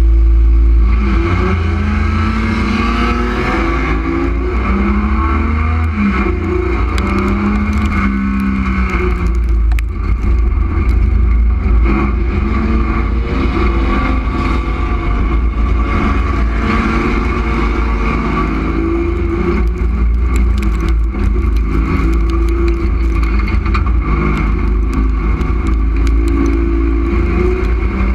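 Street stock race car's engine heard from inside the stripped cabin, revving hard and climbing and dropping in pitch through the gear changes, with frequent clicks and knocks over the top.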